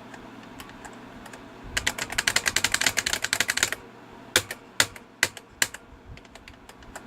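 Typing on an Alton AL2000 keyboard with quiet keys that have no click. A few light taps lead into a fast burst of typing about two seconds in, followed by four single, more distinct keystrokes.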